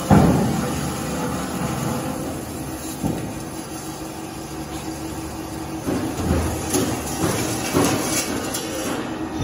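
Automatic circular-saw pipe-cutting machine working a bundle of steel pipes. A loud clunk at the start fades into the steady hum of the running machine, and a string of irregular knocks and metallic clatters follows in the second half.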